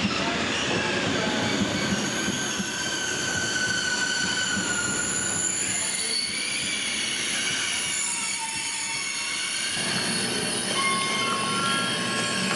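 Train running along a platform, its wheels squealing in several long, high, steady tones over a rumble, with a few short tones near the end.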